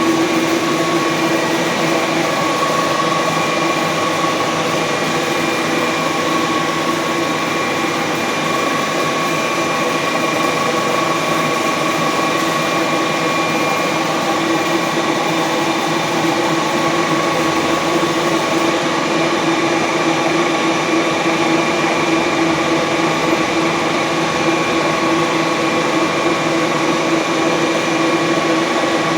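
WMW Union BFK 110 CNC horizontal boring machine running steadily, a constant mechanical hum with a steady whine that holds the same pitch throughout.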